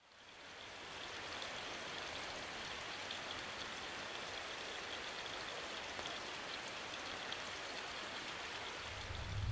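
Steady rain falling in a forest, an even patter with scattered drops, fading in over the first second. A low rumble comes in at the very end.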